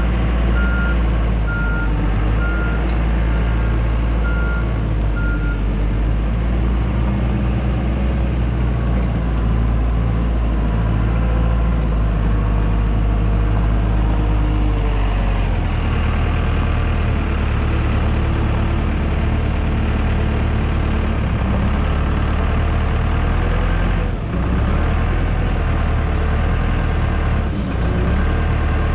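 Heavy-equipment diesel engine running steadily, with a backup alarm beeping evenly for the first five seconds or so. The engine note shifts about halfway through, and there are a couple of brief knocks near the end.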